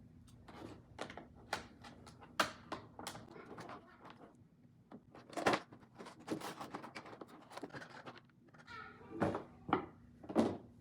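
Toy packaging being handled and opened: irregular clicks, taps and rustles of cardboard and plastic, with a few louder knocks.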